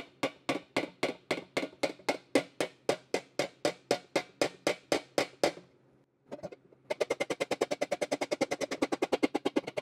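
Small hammer tapping a dent out of a 1969 Triumph TR6 Rostyle wheel cover, metal on metal, at about four even taps a second. The taps stop about five and a half seconds in, then after a short pause resume at roughly twice the rate.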